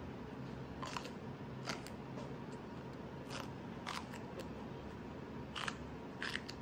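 Raw green bell pepper being bitten and chewed: several short, crisp crunches at irregular intervals over a faint steady hiss.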